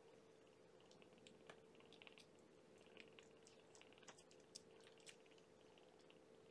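Faint, irregular wet clicking and smacking of three-week-old kittens suckling at their mother cat's belly, over a steady low hum.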